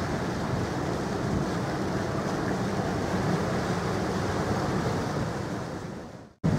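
Wind buffeting the microphone over the wash of river waves, a steady rushing noise with a low rumble. It fades out just before the end and cuts straight back in.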